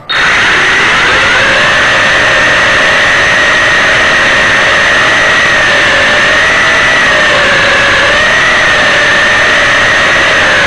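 Homemade quadrotor's electric motors and propellers starting up abruptly and running hard for take-off and climb: a loud, steady whine that rises in the first second, then wavers in pitch as the throttle changes. Heard from the camera aboard the drone, so the propeller noise is close and overpowering.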